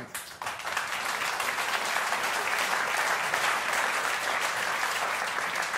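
Audience applauding steadily, swelling in during the first half-second.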